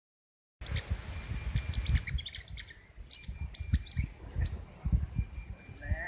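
A caged king konin, a sunbird kept as a songbird, singing a fast, unbroken run of sharp, high chirps, with low thumps underneath.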